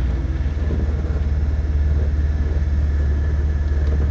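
Steady low engine rumble of an off-road vehicle driving through mud and water, heard from inside its cabin, with a faint even hiss over it.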